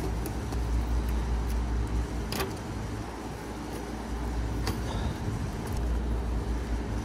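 A screwdriver tightening the screw terminals on an AC contactor, with a few small metallic clicks, over a steady low background rumble.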